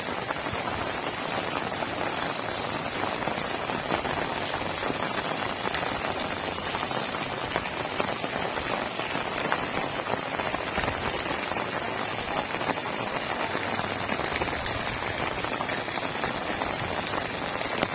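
Heavy rain falling steadily: a dense, even hiss made of countless small drop impacts.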